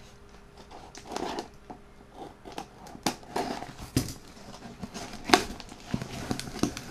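Scissors cutting the packing tape on a cardboard parcel while it is handled: scattered rustles, crinkles and sharp clicks of tape and cardboard, the sharpest a little past the middle.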